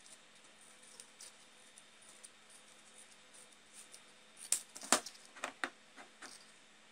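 Scissors cutting into a cardboard tube: a few faint ticks, then a quick run of sharp snips and clicks starting about four and a half seconds in, over a faint steady hum.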